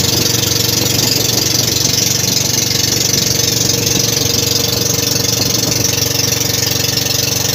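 An engine running steadily at an even idle, with no change in speed.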